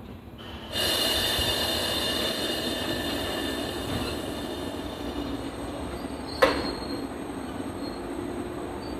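JR Nara Line train running past, its wheels squealing with several high, steady ringing tones over the rumble of the running gear. The sound sets in suddenly under a second in and slowly eases, with one sharp clank about six and a half seconds in.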